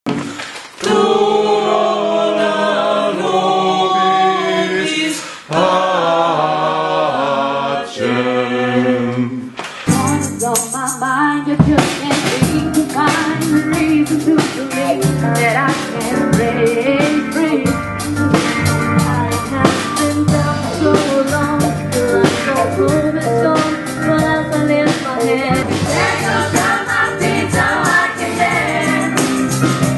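A group of female voices singing together, at first with no beat; about ten seconds in a band with a steady driving beat comes in under the singing.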